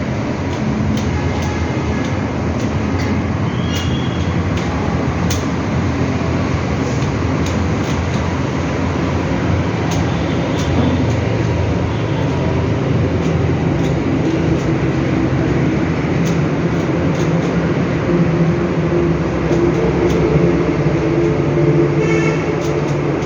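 Steady loud rumbling background noise, with faint scattered clicks of a Rubik's cube being turned.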